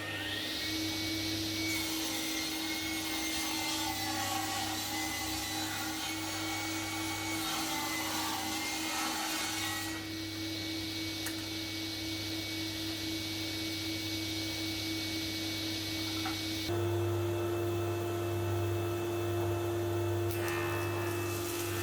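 Electric woodworking machine running steadily while timber is fed through it, with a constant motor hum. The cutting noise changes about ten seconds in and again near seventeen seconds.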